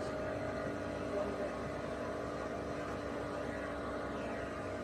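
Boat engine running steadily, an even drone with a constant pitch.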